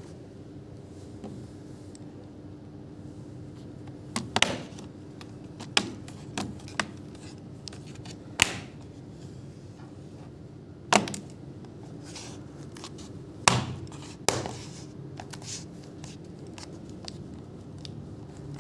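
Irregular sharp knocks and clicks, about ten of them, some in quick pairs, over a steady low hum.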